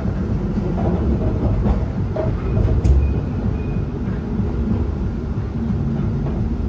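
Inside an Alstom Citadis tram car riding along: a steady low rumble of wheels on rail and running gear, with a sharp click about three seconds in.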